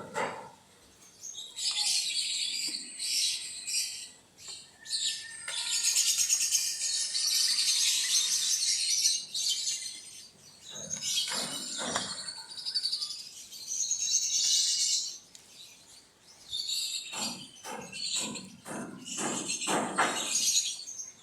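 Many birds chirping in spells of a few seconds with short quiet gaps, along with a few short knocks or rustles about halfway through and again near the end.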